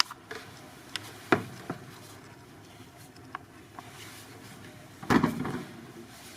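A cabin mini bar being handled: a few light clicks and knocks, then a louder clatter about five seconds in.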